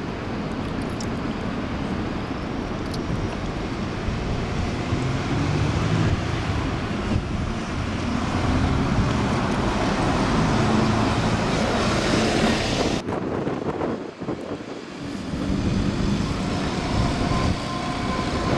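Double-decker bus engine and tyre noise growing louder as it approaches along the road, over general traffic noise; it cuts off abruptly about two thirds in and is followed by another bus running nearby.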